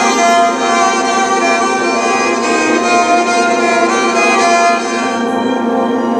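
Electric cello bowed and played through a PA speaker: long sustained notes over a steady low drone. The higher notes thin out about five seconds in.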